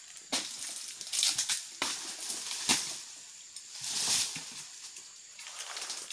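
Crackling and rustling of dry oil palm fronds as they are hooked, cut and dragged down with a long-pole sickle, in several sudden bursts.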